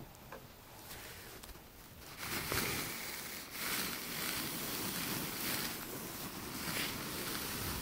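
Rubbing, rustling handling noise on the camera's microphone. It starts about two seconds in and carries on steadily, with a few brief swells.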